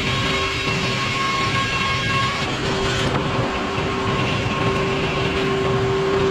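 Sawmill running steadily: constant machine noise with a steady droning tone throughout.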